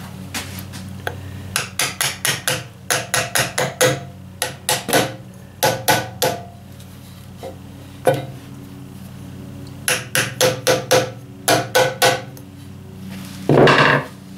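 A small hammer tapping the metal rim of a new axle oil seal in quick runs of light strikes with pauses between, working the seal around to start it square onto a Ford 2N tractor's rear axle. A brief scuffing noise comes near the end.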